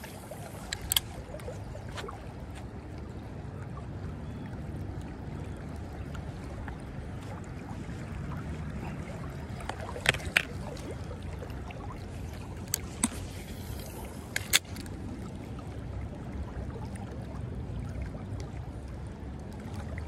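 Shallow creek water running steadily, a low rushing sound, with a few sharp clicks scattered through it, a pair of them about halfway.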